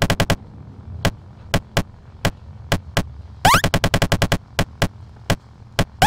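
Gunfire sound effects: single shots about every half second, then a short rising tone and a rapid burst of automatic fire for about a second, then two more single shots, over a low steady hum.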